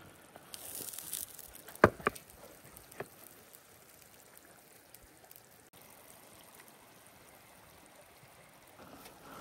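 A small forest stream running steadily, with a few sharp knocks about two seconds and three seconds in.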